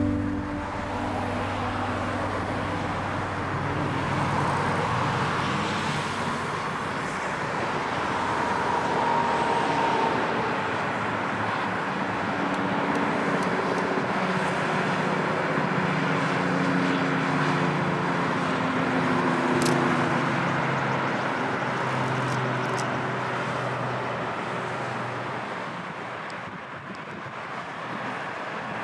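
Road traffic noise: cars passing on a roadway, a continuous rush of tyres and engines that swells and fades slowly.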